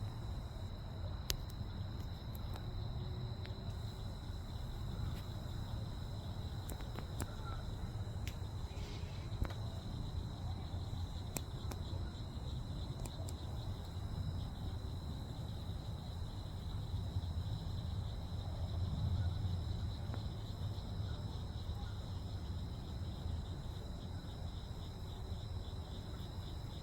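Steady high-pitched insect chirring over a constant low rumble, the rumble swelling briefly a little past the middle, with a few scattered clicks.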